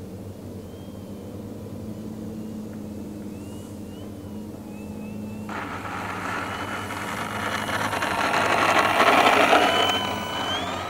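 Electric motor and propeller of an E-Flite 1.2 m P-51D Mustang foam RC warbird. It is a faint, steady drone while the model flies high. Then the sound jumps abruptly to a low pass over the runway that grows louder, peaks about nine seconds in and falls away, with a whine rising in pitch near the end.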